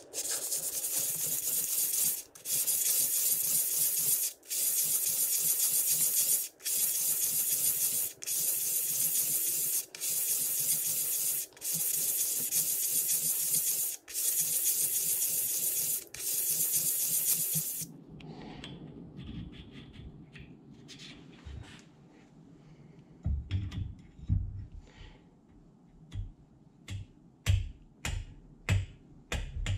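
Aluminium part rubbed by hand on wet emery paper over a flat plate, lapping about five thou off its face: a gritty hiss broken by short pauses every two seconds or so, stopping after about eighteen seconds. Then a few soft knocks and clicks.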